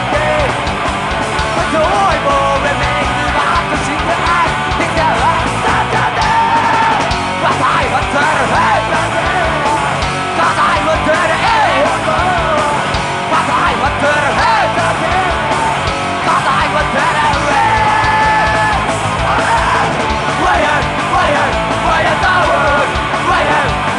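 Punk rock song: shouted, yelled singing over a loud full band.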